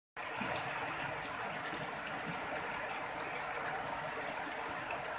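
Heavy rain pouring steadily onto standing floodwater, a dense, even hiss.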